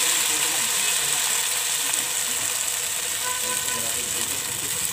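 Shrimp and moringa fritters frying in hot cooking oil in a pan: a steady sizzle.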